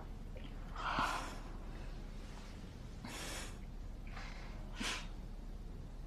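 A woman's soft breaths and sips from a mug: three short breathy sounds, the loudest about a second in.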